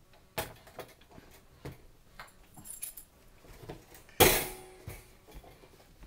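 Wire-grid door of a plastic pet carrier rattling and clicking as it is pushed from inside, with one loud, ringing metal clank about four seconds in as it swings open.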